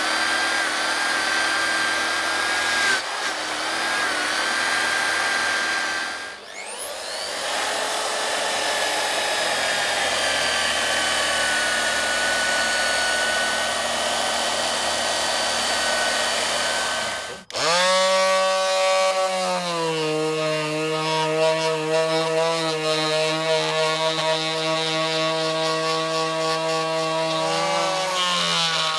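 Electric rotary disc sander grinding old paint off a wooden window frame. Its motor whine dips about three seconds in, stops briefly around six seconds, and spins back up. About two-thirds of the way through it cuts off suddenly and an electric detail sander starts, a lower-pitched steady hum that runs to the end.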